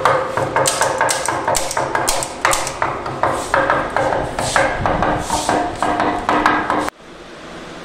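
Small tack hammer tapping staples flush into the wooden edge of a snooker table's bed to secure the new cloth, about three light blows a second. The tapping stops abruptly near the end, leaving a steady hum.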